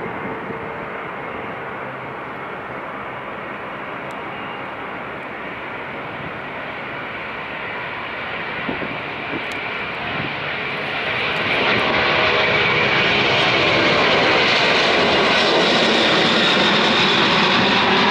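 Lockheed L-1011 TriStar's three Rolls-Royce RB211 turbofan engines at takeoff power during the takeoff roll and lift-off: a steady jet engine noise that grows much louder about eleven seconds in as the airliner passes close and climbs away.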